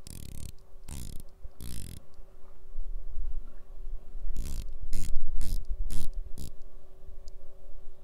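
Unidirectional sapphire bezel of a Baltic Aquascaphe dive watch turned by hand, ratcheting with quite loud clicks and no rattle between them. A few scratchy handling noises come first, then a run of about seven clicks, roughly three a second.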